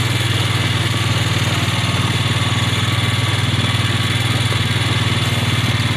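Engine of a small farm vehicle running steadily while it drives along, a low, even drone with a fast firing beat.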